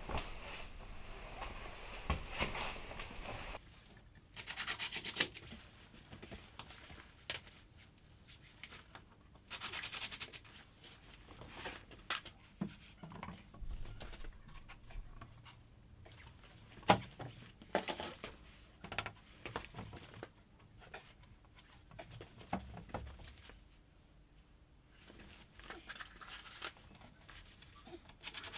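Large chipboard panels rubbing and knocking as they are handled against a wooden wall frame, with two short runs of a Metabo cordless drill-driver, each about a second long, around four and ten seconds in.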